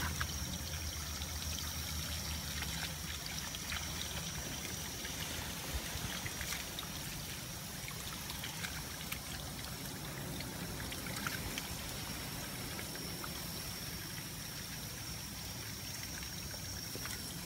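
Water running steadily from a garden hose onto wet, muddy ground, a continuous trickle with a few small splashes and clicks as a raccoon paws and dabbles at the flow.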